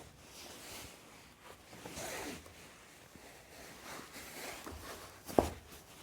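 Faint rustling and handling noises, with one sharp click near the end.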